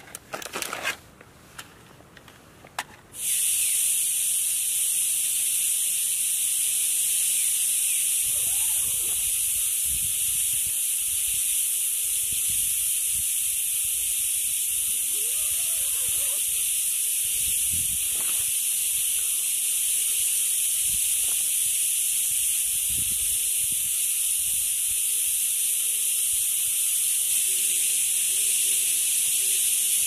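Steady, loud, high-pitched chorus of insects that starts abruptly about three seconds in and holds unchanged, preceded by a few faint clicks and rustles.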